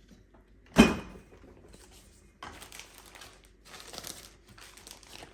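A single sharp clunk of something hard set down, a little under a second in, then rustling and crinkling of packaging as items are handled and put away in a refrigerator.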